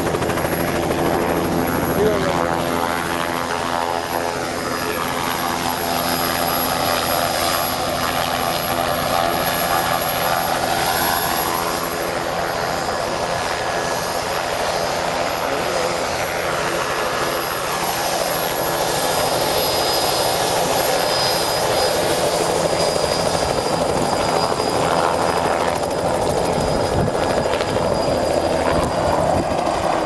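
A turbine helicopter running close by: a continuous rotor beat with a high steady turbine whine, which rises slightly about two-thirds of the way through.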